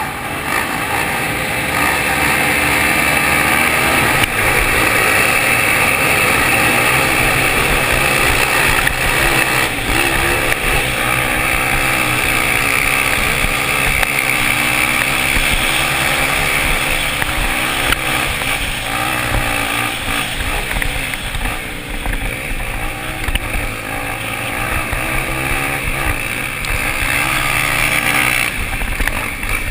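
250cc off-road motorcycle engines racing, the pitch rising and falling continually as the bikes rev up and shift.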